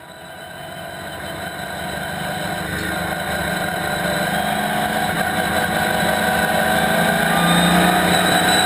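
Chevrolet Camaro race car's ZZ4 V8 engine running at a steady pitch, heard from inside the stripped cockpit, growing steadily louder throughout.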